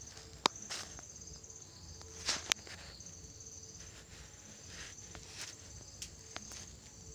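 Crickets chirping in the background in trains of rapid high-pitched pulses, with a few sharp clicks, the loudest about half a second and two and a half seconds in.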